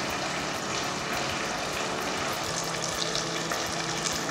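Bigos, a stew of meat, sauerkraut and white cabbage, sizzling steadily in a stainless steel pot on the hob.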